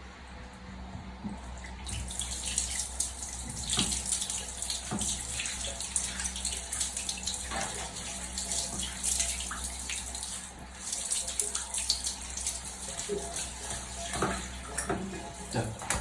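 Tap water running and splashing as an air-conditioner filter is rinsed, with small knocks of handling. The water gets louder about two seconds in.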